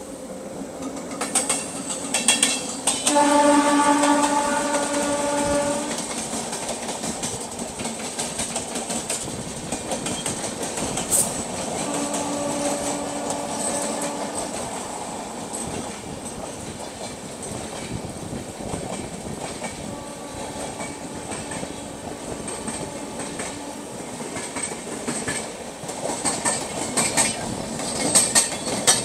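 Electric passenger trains running at speed side by side, heard from one of them, with wheels clattering over the rails. A train horn sounds for about three seconds a few seconds in, again for about two seconds some twelve seconds in, and faintly once more around twenty seconds.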